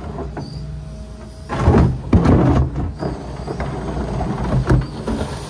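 John Deere 245 excavator's diesel engine running steadily under load as its bucket is dragged back, scraping along the dirt floor of the trench, with the loudest grinding scrapes about one and a half to three seconds in and a short sharp one near the end.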